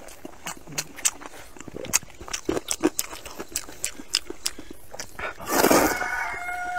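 Close-miked eating: wet chewing and mouth clicks, then a loud slurp of thick rice noodles about five and a half seconds in. A high drawn-out call, falling in pitch at its end, starts during the slurp and runs on past it.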